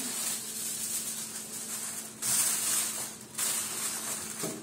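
Aluminium foil crinkling and rustling in uneven bursts as a sheet is pressed and shaped into a glass baking dish, louder about halfway through.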